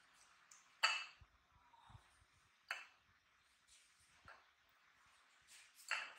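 A few sharp clinks of a knife and fruit strips against ceramic plates while fruit is sliced, with quiet room tone between them.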